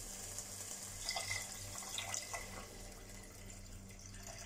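Water poured from a plastic jug into an aluminium pressure cooker onto rice and moong dal, a steady splashing pour.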